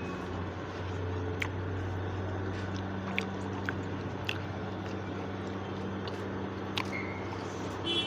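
Someone biting into and chewing crisp fried chicken cheese balls: a few short, crunchy clicks scattered over a steady low hum.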